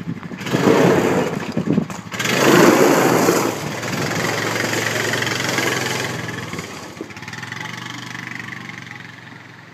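ATV engine pulling away under load while towing a trailer, with two loud stretches of tyre noise on gravel in the first few seconds. The engine then runs steadily and grows fainter as the quad drives off.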